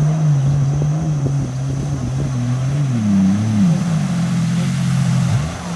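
Jet ski engine running at speed as the watercraft passes. The steady engine note wavers, dips about three seconds in, then slides down near the end.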